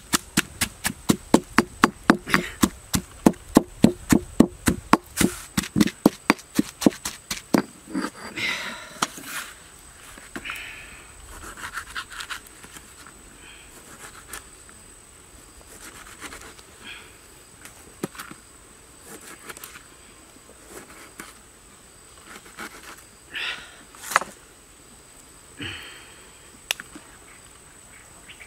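Stone pestle pounding chilies and garlic in a stone mortar: quick, even strokes, about four a second, that stop about seven seconds in. After that come scattered light knocks and scrapes as limes are sliced with a knife on a banana leaf and dropped into the mortar.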